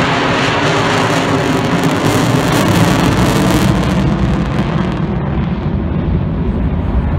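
F-16 fighter jet passing, its engine noise loud and hissing, harshest about two to three seconds in. The treble then fades as the jet moves away, leaving a low rumble.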